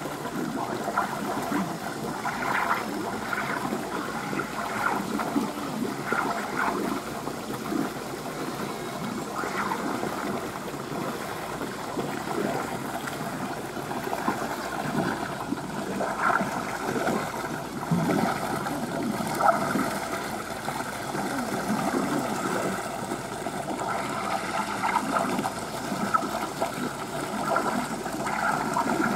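Running water in an American beaver's pool as the beaver swims through it: a steady wash with small irregular surges.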